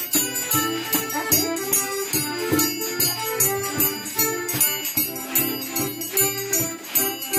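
Music with a fast, steady beat of percussion strikes over held instrument notes.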